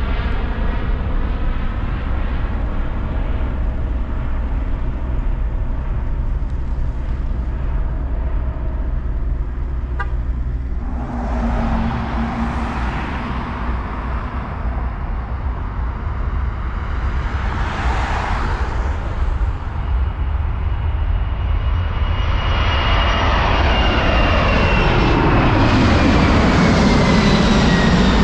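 Jet airliner noise: a steady low rumble from a plane overhead, then after a break a roar that builds as a Boeing 747 passes low on landing approach. Its engine whine slides down in pitch near the end, where the roar is loudest.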